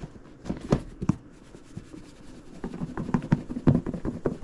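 Lidded plastic container being shaken with a crappie fillet in Everglades breading inside: a few scattered knocks, then a quick run of thumps and rattles in the second half.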